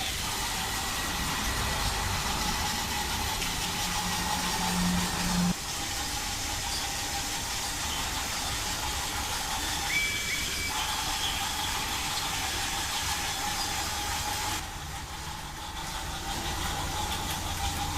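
Battery-powered TOMY Trackmaster Talking Percy toy locomotive running along plastic track pulling a train, its motor and wheels running steadily while its speaker plays a hissing chuff-chuff steam sound effect. A brief high-pitched tone sounds about ten seconds in.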